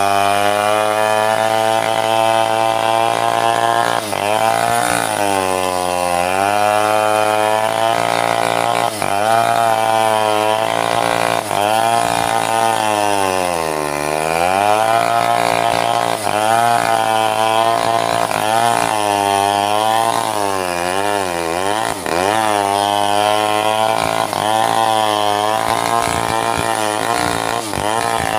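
Stihl two-stroke chainsaw cutting into a mahogany log, its engine pitch sagging and recovering again and again as the chain bites under load, most deeply about halfway through and in several quick dips near the end.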